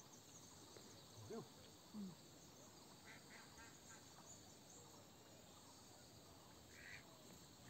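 Near silence, with a few faint short calls, the first about a second and a half in.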